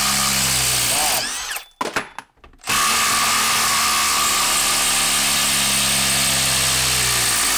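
Milwaukee brushless impact driver hammering a lag screw into wood under heavy load, stopping briefly about a second and a half in, then hammering steadily again.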